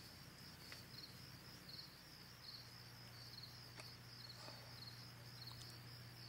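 Faint cricket chirping, a few even chirps a second, in an otherwise near-silent room. A low steady hum comes in about halfway through.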